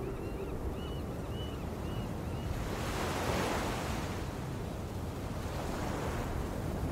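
Ocean surf washing on a shore, a steady hiss that swells a little about three seconds in, with a run of short high chirps during the first two seconds or so.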